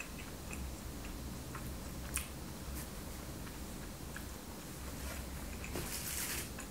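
Close-miked chewing of a donut: soft, wet mouth clicks scattered through, one a little louder about two seconds in, and a brief soft hiss near the end.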